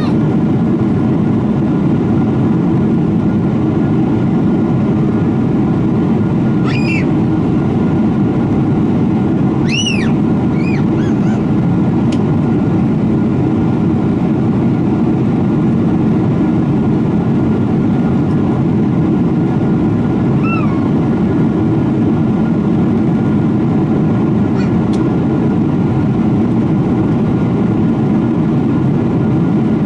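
Steady cabin roar of a Boeing 777-300ER in the climb, from its GE90 turbofan engines and the airflow, heard inside the passenger cabin by the wing. Over it come a few brief high-pitched squeaks, at about 7, 10 and 20 seconds in.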